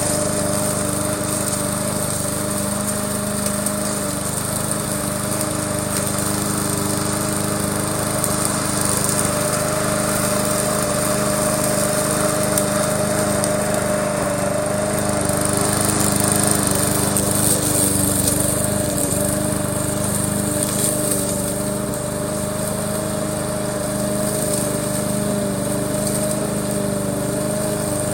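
Remote-controlled push-mower conversion running steadily while it mows. Its motor hum holds an even pitch, with slight swells in loudness.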